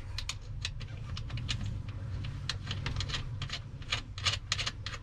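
Irregular light clicks and rattles of hands handling battery cables and terminal hardware on top of a boat battery, a few per second, over a steady low hum.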